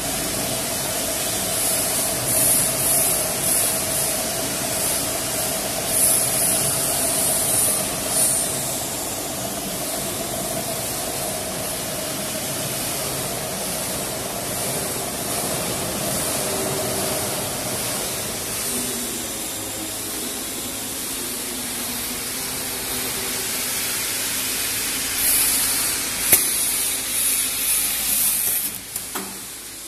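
AST30 automatic stretch-wrapping machine running, its turntable rotating a load while the powered pre-stretch carriage feeds stretch film: steady machine noise with a whine that fades out about halfway, and recurring hissing. Near the end come several sharp clicks as the automatic film clamp and cut works.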